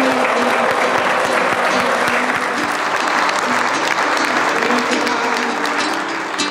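A large audience applauding, with dense steady clapping that thins out near the end, over background music.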